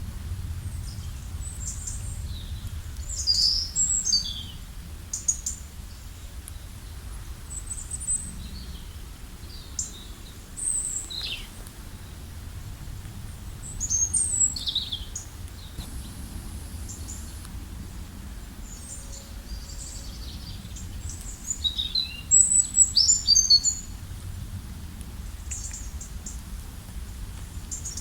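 Several small birds chirping and calling in short high notes and quick downward slurs, in a few clusters of rapid calls with the loudest cluster near the end. A steady low rumble runs beneath them.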